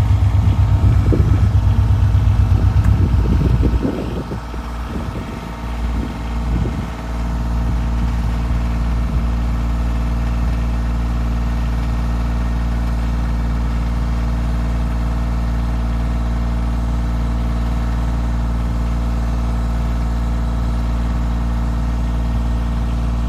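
Engine idling steadily throughout. A second, louder engine runs over it for the first few seconds, then dies away with some uneven rumbling between about four and seven seconds in.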